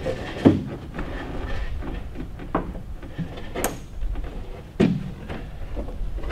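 Carbon-fibre engine cowl panel knocking against the airframe as it is worked into place: a few separate knocks and bumps, the loudest about half a second in and near five seconds in.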